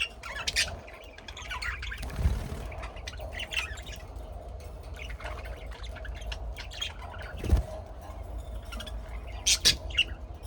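Birds chirping and squawking in short, scattered calls, loudest near the end, over a steady faint hum. A dull thump comes about seven and a half seconds in.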